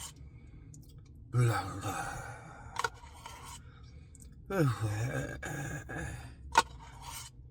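A man's wordless sighs and groans, two of them, the second falling in pitch, with two sharp clicks, one after each.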